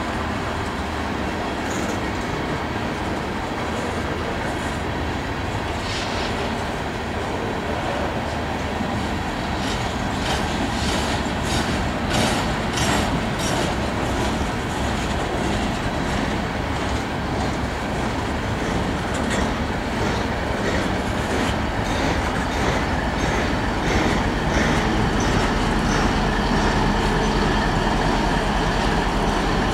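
Loaded freight train's coal hopper cars rolling past, wheels clicking over the rail joints. Near the end it grows louder as the rear distributed-power diesel locomotive comes alongside, its engine humming low.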